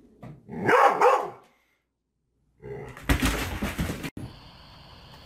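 A dog barking loudly a few times in quick succession, then, after a short silence, a brief noisy scuffle with low thumps.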